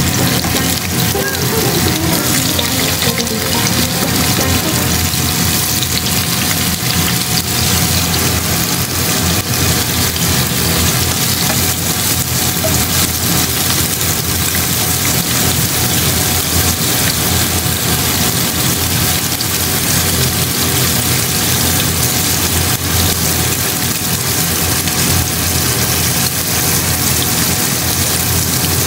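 Dry tofu frying in hot oil in a pan: a steady sizzle.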